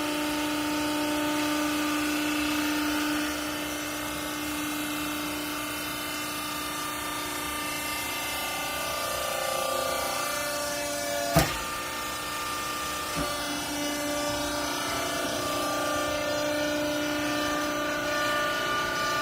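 Hydraulic baler's electric motor and pump running with a steady whine of several tones, shifting in pitch partway through. A sharp metal clank comes a little past halfway, with a lighter knock soon after.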